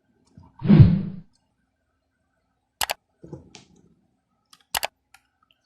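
Handling of a smoke alarm and its 9-volt battery: a loud bump about half a second in, then sharp clicks near three seconds and again near five seconds, with light rustling between.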